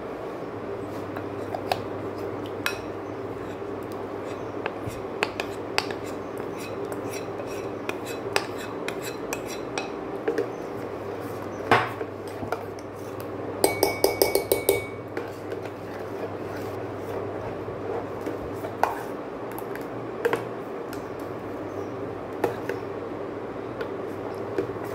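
A steel spoon stirring thick rice-flour batter in a stainless steel pot, with scattered clinks of metal on metal and a quick flurry of clinks about fourteen seconds in, one of them ringing briefly. A steady hum from the induction cooktop runs underneath. The batter is thickening to a custard-like paste as it cooks.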